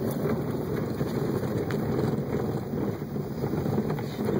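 Car engine and tyre noise heard from inside the cabin while driving on a narrow road, a dense rumble with wind noise on the microphone.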